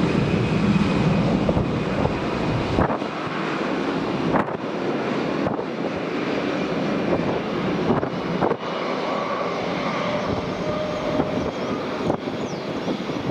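Airbus A320-200's twin jet engines at high thrust on the takeoff roll, a continuous engine rush with a faint whine. The deep rumble thins out about three seconds in as the jet draws away. Wind buffets the microphone several times.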